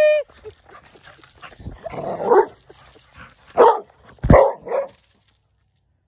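American bulldog barking four times, the first about two seconds in and the last three close together near the end.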